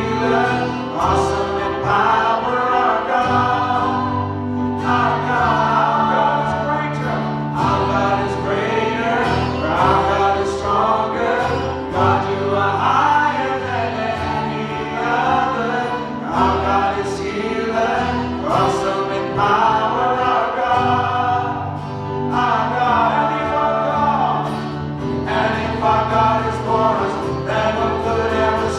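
A worship song: a group of voices singing together over steady instrumental backing with sustained bass notes.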